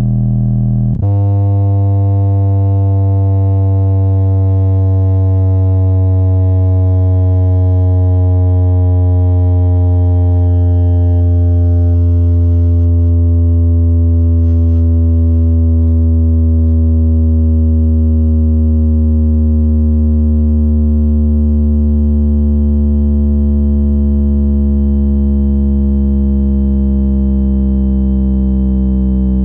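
Subwoofer driven hard with a low test tone. The tone jumps to a new pitch about a second in, then glides slowly downward. It sounds buzzy, full of overtones.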